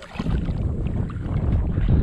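Wind buffeting an action camera's microphone: a loud, rough low rumble that comes up a moment in and keeps going.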